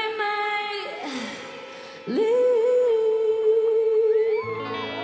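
Female pop singer's live vocal holding two long, sustained notes with vibrato over very sparse accompaniment. Near the end, the band's low instruments come back in underneath her.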